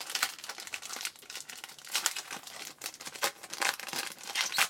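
Trading-card pack wrapper being torn open and crinkled by hand, a dense irregular crackling.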